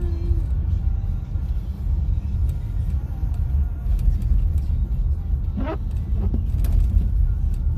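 Car cabin noise while driving: a steady low rumble of the engine and tyres on the road, with a song playing faintly on the car radio.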